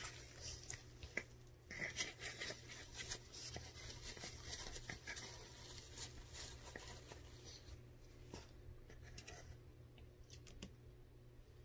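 Metal spoon scraping and chipping at frozen cornstarch in a plastic tub: a dense run of gritty scrapes and clicks that thins to a few scrapes over the last few seconds.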